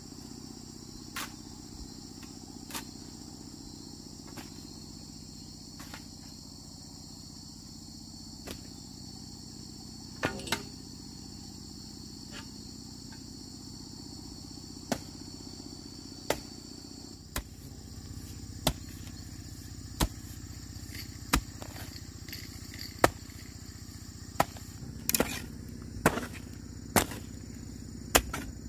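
Insects chirping steadily in a high, even drone, with sharp knocks breaking through. The knocks are scattered at first, then come about once a second through the second half.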